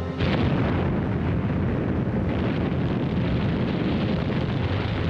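A warship blowing up at sea: a sudden blast just after the start, then a long, continuous rumble of explosions.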